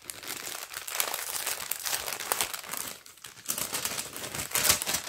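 Paper crinkling and rustling as a thin paper envelope is handled and unfolded, with a brief lull about three seconds in and a louder crackle near the end.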